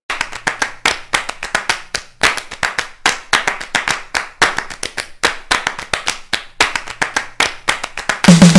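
Hand clapping: a run of sharp, irregular claps, several a second. Near the end it gives way to electronic music with a heavy bass beat.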